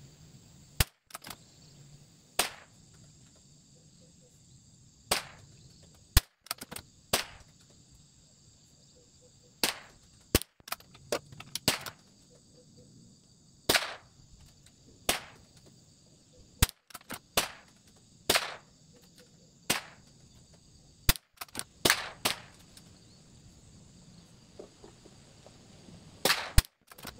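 A string of sharp .22 rimfire rifle shots at a shooting range, coming every second or two and sometimes in quick clusters of two or three. A steady high insect chorus runs underneath.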